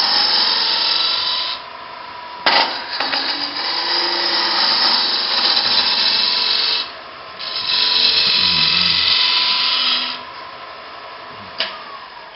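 Bowl gouge taking a pull cut on a bowl blank spinning on a wood lathe: a loud hissing cut in three passes of a few seconds each, with short breaks between, over the steady whine of the running lathe. Near the end the cutting stops, leaving the lathe running more quietly, with one click.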